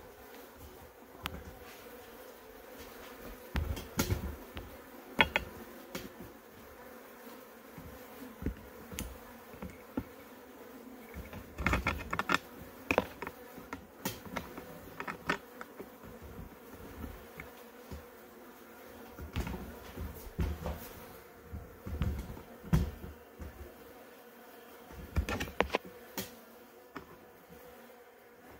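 Honeybees buzzing in a crowded 3D-printed plastic hive, a steady hum, with many short sharp clicks and knocks scattered throughout.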